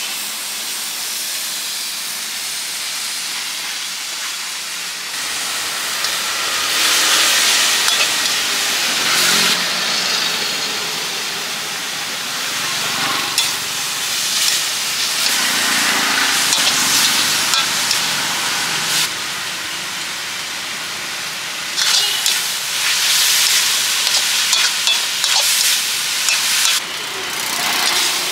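Noodles stir-frying in a large steel wok over a gas burner: a steady sizzle and hiss that swells in several surges as the food is tossed. A metal spatula clinks against the wok now and then.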